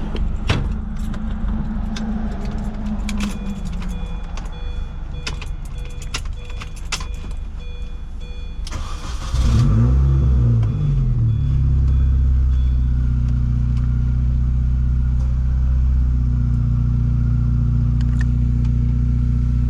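Mini Cooper S R53's supercharged 1.6-litre four-cylinder being started: a few clicks and faint tones with the ignition on, then the starter cranks about nine seconds in and the engine catches with a brief rev flare before settling into a steady idle.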